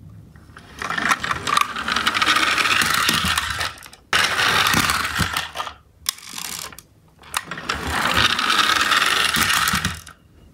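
Toy garbage trucks' geared drive motors whirring in two long stretches, as the little trucks are wound against the floor and run, with clicks and knocks between.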